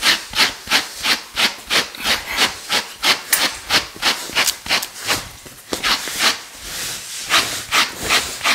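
Hand brush raked through the wool of a tanned lambskin, quick scratchy strokes about three a second, with a short pause about five seconds in.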